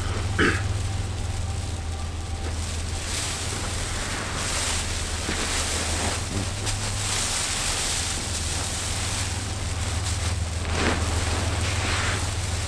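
Rustling and crinkling of a reflective emergency survival tent's material as a person moves about inside it, in uneven swells, over a steady low rumble.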